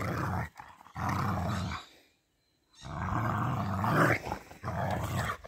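Dog growling in play while tugging and shaking a rope toy: a string of rough, low growls in bursts, with a short break about two seconds in.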